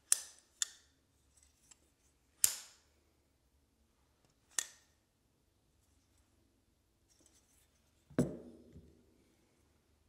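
Folding knife blade snapping open and shut: four sharp metallic clicks in the first five seconds, then a duller knock with a brief low ring about eight seconds in.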